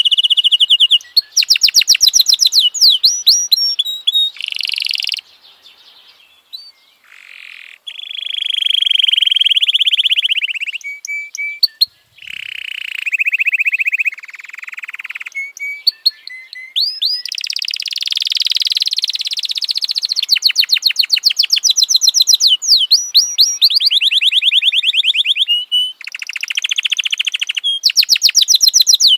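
F1 domestic canary singing a long, high-pitched song of fast trills and rolls. Runs of rapid repeated notes alternate with held buzzy rolls, with short breaks about five and eleven seconds in.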